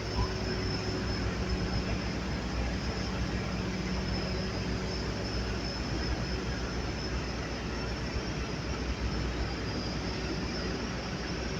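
Skid steer loader's engine running steadily, with an even hiss over a low hum that holds at one level throughout.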